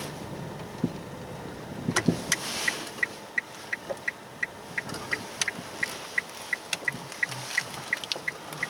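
Inside a Nissan Leaf electric car's cabin, quiet road noise with a few sharp knocks from the front suspension, which the owner suspects is a worn right silent block. From about two seconds in, the turn-signal indicator ticks evenly, about three times a second.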